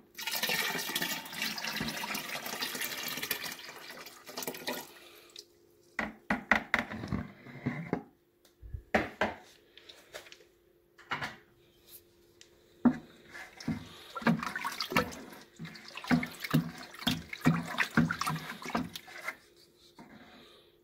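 Frothy wine-yeast starter poured from a bowl into a plastic fermentation drum of tangerine must, a steady splashing pour lasting about five seconds. Then the must is stirred with a wooden paddle: irregular sloshing until near the end.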